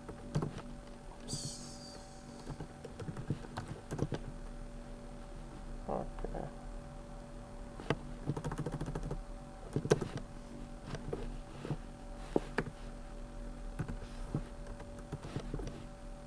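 Irregular keystrokes on a computer keyboard, scattered clicks with short pauses between, over a faint steady hum.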